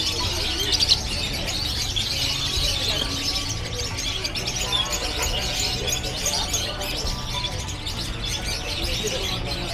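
Many caged parrots and other pet birds chirping and calling at once, a dense steady chatter of high chirps over a low steady hum.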